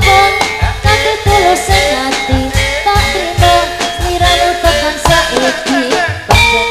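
Live Javanese gamelan music, with a female singer singing over the ensemble and a drum keeping an irregular beat.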